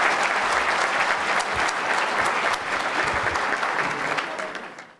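Large seated audience applauding, many hands clapping together in a steady patter that fades out at the very end.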